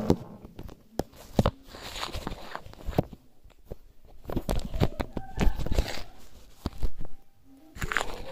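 Irregular knocks, taps and rustles, some loud, from handling as the phone is moved about close to the microphone on a tiled floor.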